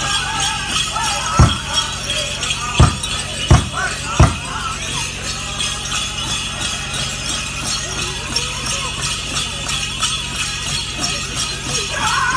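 Powwow dancers' leg bells jingling steadily as they dance, with four hard drum beats between about one and a half and four seconds in. Powwow singing is heard at the start and comes back near the end.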